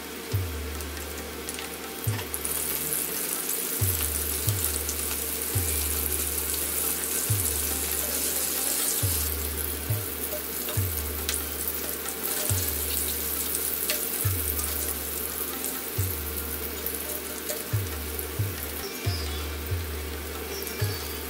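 Battered prawns deep-frying in hot oil: a steady sizzle, strongest in the first half, over background music with a low, regular bass beat.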